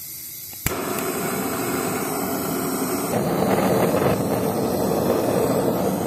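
Handheld butane gas torch lit with a single click just under a second in, then its flame burning with a steady hiss.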